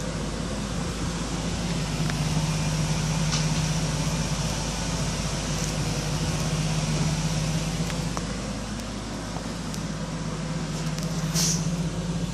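A steady low mechanical hum under a rushing noise, with a few faint clicks and a short hiss about a second before the end.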